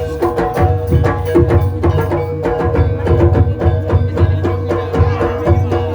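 Ebeg accompaniment music: a fast, steady pattern of hand-drum strokes over sustained metallic tones, played without a break.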